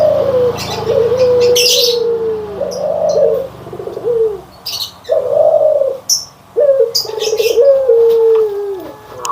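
Barbary doves (puter) cooing: a run of short, pitched coos, each swelling and then dropping in pitch, one after another, with brief high chirps in between.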